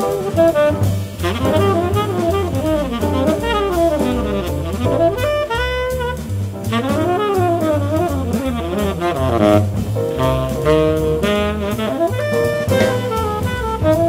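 Jazz quartet playing at a fast tempo: a tenor saxophone runs quick, winding melodic lines over piano, double bass and drums, with the bass stepping note by note and cymbals keeping time.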